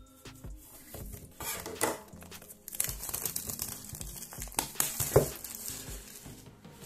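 Clear plastic shrink-wrap being peeled off a cardboard product box, crinkling and crackling in irregular bursts, the loudest crackle about five seconds in.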